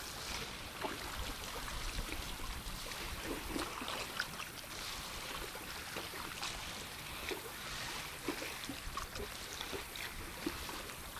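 Small lake waves lapping against shoreline rocks, with soft, irregular little splashes.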